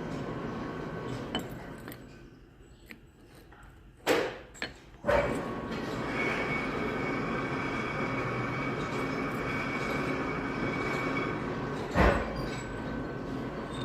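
Metal lathe running with a steady mechanical hum and whine. The noise drops for a couple of seconds, then several sharp metallic clanks come about four to five seconds in and another near the end.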